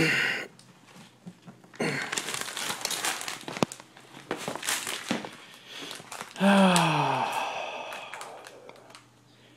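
Clear contact paper being peeled off a painted car panel, crinkling and tearing in spells, with one sharp click. About two-thirds through comes the loudest sound, a short low tone that falls in pitch.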